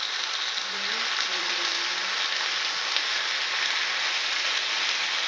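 A masala-coated vanjaram (seer fish) steak sizzling steadily on a hot ridged grill pan.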